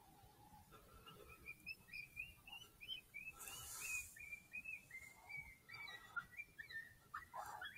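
FoxPro X24 electronic predator caller playing a call, heard faintly: a rapid string of short, high, wavering notes, several a second.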